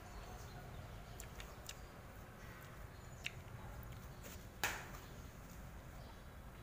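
Low steady room hum with a few light clicks of chopsticks and a metal spoon against a porcelain noodle bowl, and one louder knock about two-thirds of the way through.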